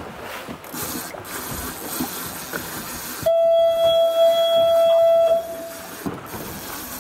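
A single steady horn note, held for about two seconds and starting about three seconds in, over wind and water noise.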